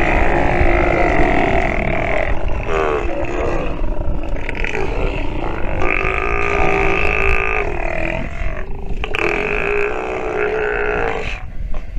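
Steller sea lions calling: a series of long, drawn-out calls, each held for a second or two at a fairly steady pitch, one after another and sometimes overlapping, over a steady low rumble.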